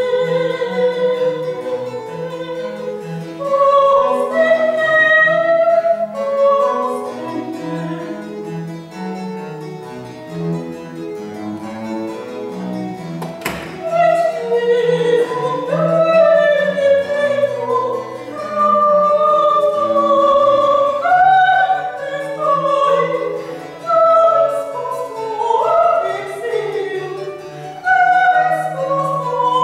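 Soprano singing a baroque sacred aria with vibrato, accompanied by cello and harpsichord continuo. A brief click sounds about halfway through.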